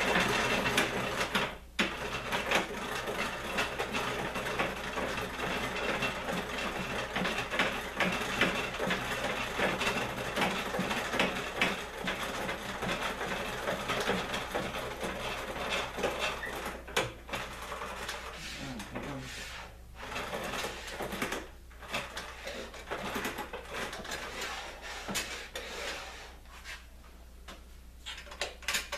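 Height-adjustment crank of a Delta 22-590 portable planer being turned to set the cutterhead depth: a dense run of small mechanical clicks from the crank and its gearing, with a few short pauses, quieter near the end.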